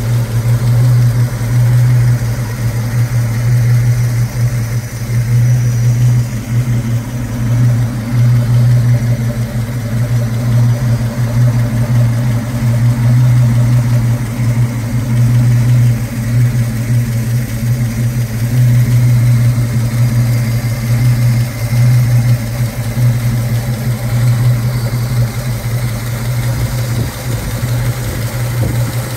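1967 Mustang GT's 390 S-Code big-block V8 idling steadily, heard close up from the open engine bay.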